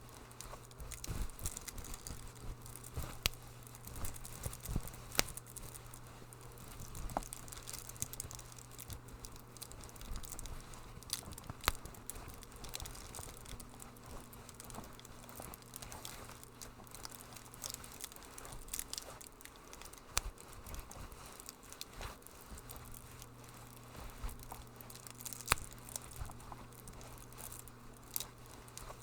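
Wood fire crackling in a fireplace: irregular sharp pops and snaps over a soft hiss. A steady low hum runs underneath and drops out for a few seconds past the middle.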